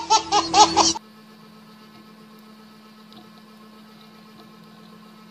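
A baby laughing in quick repeated bursts, cut off abruptly about a second in; after that only a faint steady hum.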